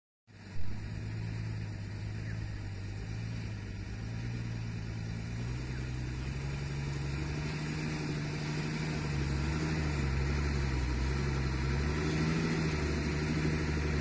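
Case 851EX backhoe loader's diesel engine idling steadily, with a short knock just after the start.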